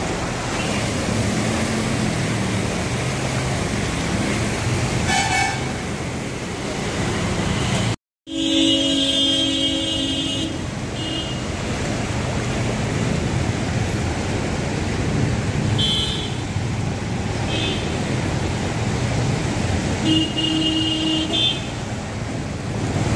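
Traffic moving along a flooded road: a steady wash of engines and tyres through standing water, with vehicle horns honking several times. The longest honk is about eight seconds in, right after a brief dropout in the sound, and lasts about two seconds.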